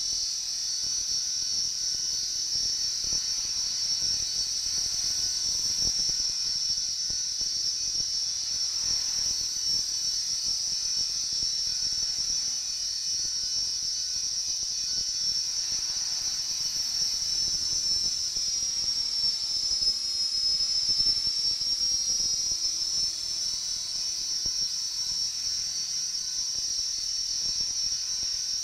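Align T-Rex radio-controlled helicopter hovering: a steady high-pitched whine from its rotor drive. About twenty seconds in, the whine dips smoothly in pitch and gets a little louder, then comes back up.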